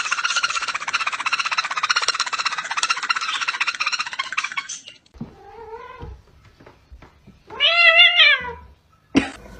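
For the first five seconds, a rapid buzzy pulsing sound. Then a domestic cat meows: a short meow about five and a half seconds in, and a loud, drawn-out meow near the end that rises and falls in pitch.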